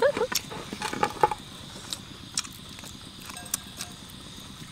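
People eating fried pork ribs: scattered small clicks and crunches of biting and chewing, denser in the first second and a half, then sparse.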